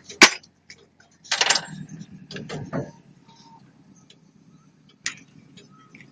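A string of irregular sharp clicks and knocks, the loudest right at the start, with a short noisy rush about a second and a half in.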